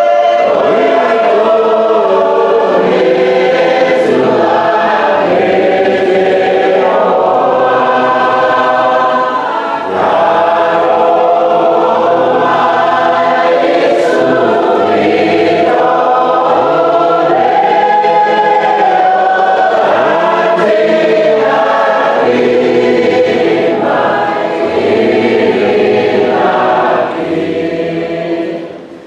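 A choir of many voices singing a hymn in harmony, holding and changing notes steadily, with a short drop in level near the end.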